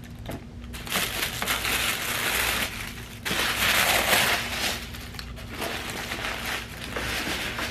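Shoe packaging crinkling and rustling as it is handled, loudest for about a second in the middle.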